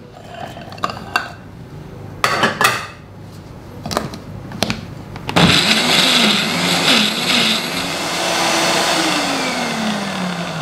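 A few knocks and clatters as chillies are tipped into a Philips blender jar and its plastic lid is fitted. About halfway through the blender motor starts and runs loudly, its pitch wavering and then falling as it works through a thick spice paste in a jar the cook calls a little too full.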